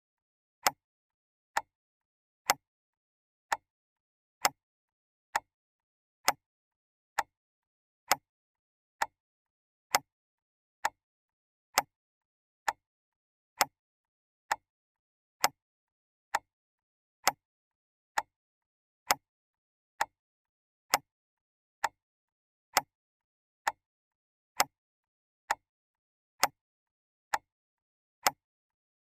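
Clock ticking steadily, one sharp tick a little under a second apart, with dead silence between the ticks.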